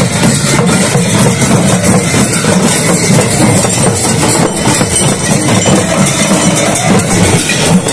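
Several double-headed dhol drums beaten together in a fast, dense rhythm, with small hand cymbals clashing over them; loud and crowded throughout.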